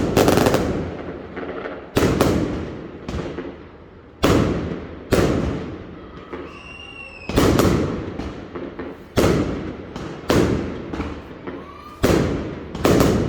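Fireworks exploding overhead: about ten sharp bangs, roughly one a second, each trailing off in a rumbling echo, with a short high whistle between bursts about two thirds of the way in.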